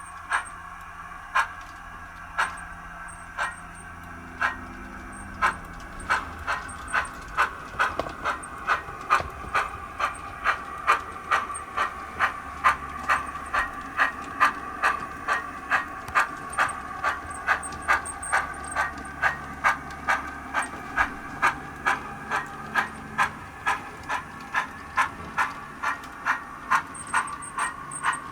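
Steam locomotive exhaust chuffs from a Soundtraxx Econami sound decoder's speaker in a Hornby 9F model, playing its default sounds. The beats come about one a second at first and quicken to roughly three a second as the model gathers speed, over a steady hiss.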